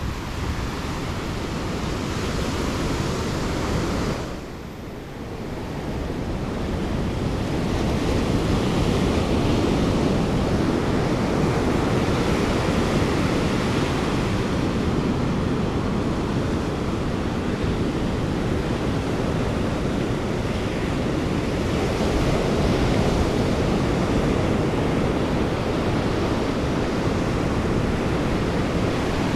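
Ocean surf breaking on the beach as a continuous rushing wash, with wind buffeting the microphone. The level dips briefly about four seconds in.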